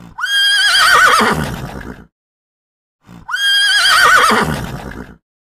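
Horse whinnying twice, the same call each time: a high held note that breaks into a wavering, falling whinny with a rough low end.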